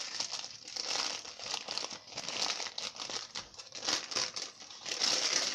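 Thin butter-paper wrapping crinkling and rustling as hands untwist and peel it open from around a chilled cake roll, in irregular crackles that are loudest near the end.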